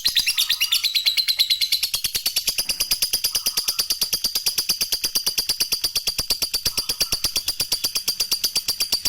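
Lovebird singing a long ngekek: a fast, unbroken chattering trill of sharp high notes, about a dozen a second.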